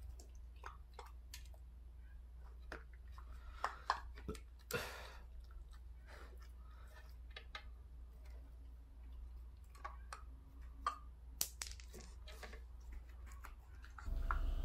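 Golden retriever puppy with her head in a potted plant, chewing and rooting in the gravel topping: scattered small clicks and crunches, with a louder rustling crunch about five seconds in.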